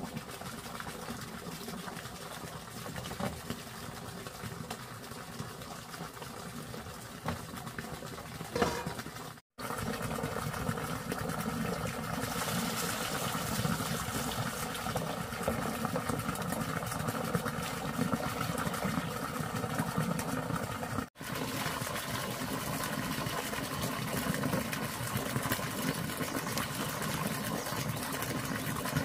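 Water pouring steadily from a hose into a large plastic tub, over a steady machine hum.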